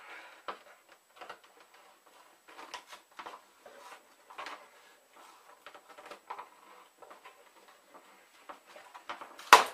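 A knife cutting plastic zip ties on a cardboard packing insert: scattered small scrapes, rustles and clicks, with one loud sharp snap near the end.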